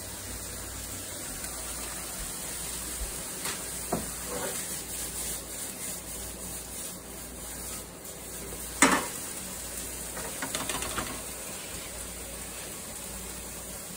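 Ground turkey browning in a frying pan, sizzling steadily. A few light clicks, and one sharp knock about nine seconds in.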